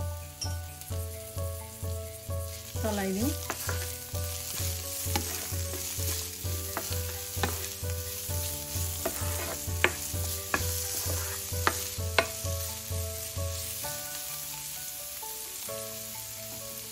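Onion, chilli, garlic and ginger sizzling in hot mustard oil in a nonstick wok, stirred with a plastic spatula that scrapes and clicks against the pan. A soft background tune with a steady low beat plays underneath; the beat drops out near the end.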